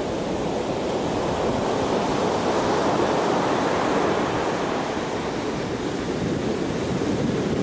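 Pacific Ocean surf breaking on a sandy beach: a steady rush of waves that swells briefly about three to four seconds in.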